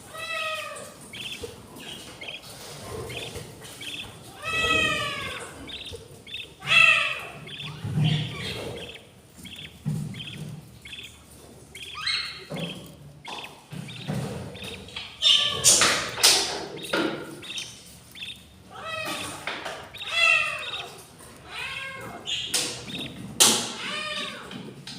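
Budgerigar chicks begging in the nest box: repeated calls that arch down in pitch, coming in short runs, mixed with a few knocks and scrapes.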